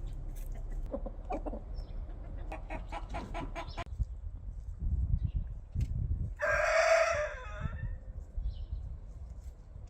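Domestic chickens: a quick run of short clucks about three seconds in, then a rooster crowing once, the loudest sound, about six and a half seconds in.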